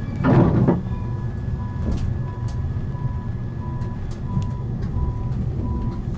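Short electronic warning beeps, about two a second, sound over the low running rumble of a Siemens Avenio tram, with a brief louder rumble about half a second in.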